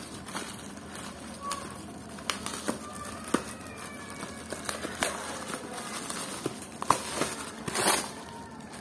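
Thin plastic courier mailer bag crinkling and crackling as hands tear it open and pull a cardboard box out of it, with a louder rustle near the end as the box comes free.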